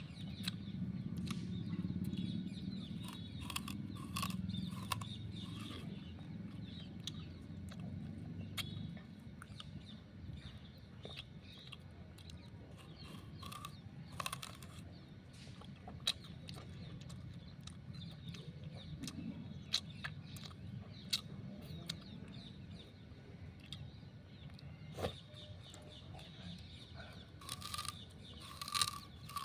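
Raw sugarcane being bitten and chewed: sharp cracks and crunches as the cane is torn and the fibres crushed between the teeth, irregular and repeated.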